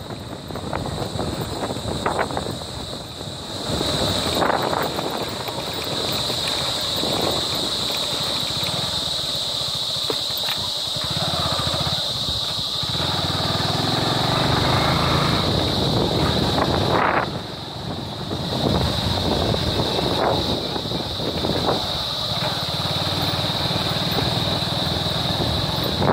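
Motorcycle running along a rough dirt road, with jolts and rattles from the uneven surface and a steady high-pitched whine over the engine.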